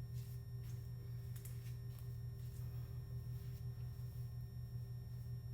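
A steady low electrical hum, with a few faint light ticks and rustles over it.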